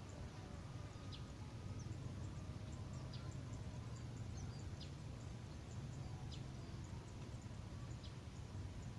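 A bird repeating short, high, downward-sliding chirps about once a second, over a faint low steady rumble.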